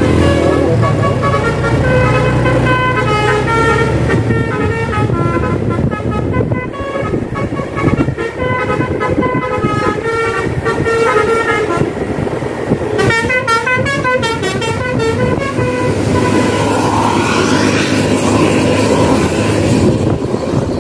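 Basuri multi-tone 'telolet' bus horn playing a tune of short stepped notes over the tour bus's running engine. About two-thirds of the way through it switches to a fast warbling trill.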